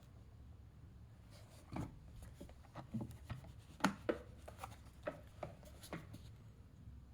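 Light clicks and taps of small toy cars being handled, about a dozen scattered over a few seconds, the loudest about four seconds in.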